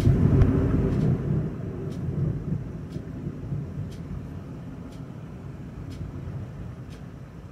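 A deep rumble swells up suddenly and fades over about two seconds into a low, steady rumble. Faint ticks come every second or so.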